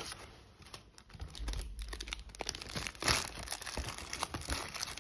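Paper shopping bag crinkling and rustling as it is handled close to the microphone, in irregular crackles with a louder rustle about three seconds in.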